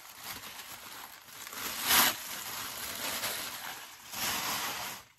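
White packing wrap rustling and crinkling as it is pulled out of a shoe box and handled, with one louder crinkle about two seconds in.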